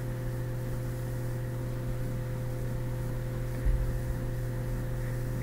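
Steady low electrical hum with faint hiss from the recording setup, with a soft low bump about two-thirds of the way through.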